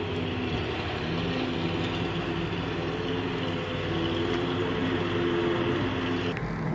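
Dassault Rafale fighter jets in flight, a steady jet-engine noise with a wavering low drone in it. The higher part of the noise drops away near the end.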